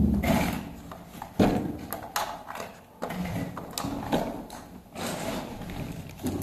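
Footsteps on a bare floor and scattered knocks and clicks of hand tools being handled.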